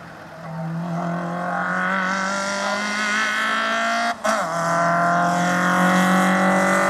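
A Ford Fiesta rally car's engine at full throttle, getting louder as the car approaches. The engine note breaks briefly about four seconds in, then comes back stronger as the car draws close.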